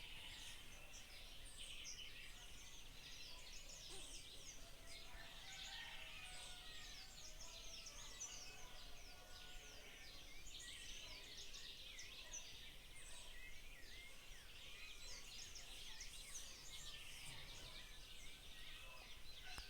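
Many birds singing and calling at once: a faint, dense chorus of high, quick chirps and whistles that overlap without pause.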